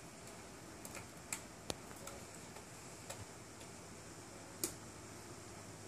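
A Welsh Corgi puppy chewing and tugging on a string hanging from a wicker basket: a handful of faint, irregular clicks, the loudest a little more than four and a half seconds in.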